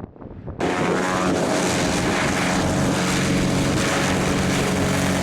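Light propeller aircraft's piston engine running at high power for its departure, a steady droning tone. It cuts in abruptly about half a second in.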